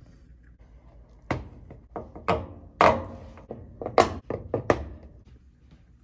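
A series of sharp taps and knocks, about seven between one and five seconds in, irregularly spaced, like hard parts being handled and set down.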